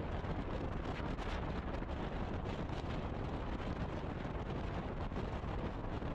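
Steady wind noise on a GoPro's microphone as a road bike is ridden at speed.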